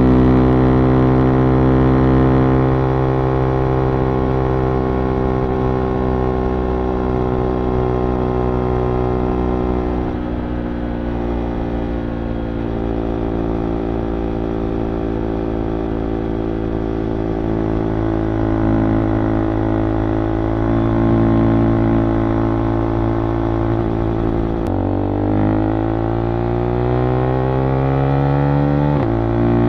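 Husqvarna Vitpilen 401's single-cylinder engine under way, holding a steady drone with the revs easing slowly down for most of the time. Near the end it pulls up through the gears: the revs drop sharply twice, about four seconds apart, climbing in between, as it shifts up on the quickshifter.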